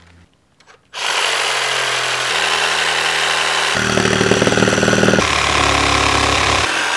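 Cordless reciprocating saw cutting into a car tyre, starting about a second in and running steadily; the motor's pitch shifts in steps several times as the cut goes on.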